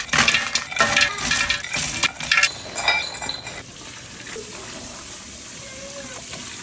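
Frozen strawberry tops tumbling out of a glass measuring cup into a big aluminium pressure canner, clattering and clinking against the metal for about three and a half seconds. Then water poured from the cup splashes steadily into the pot.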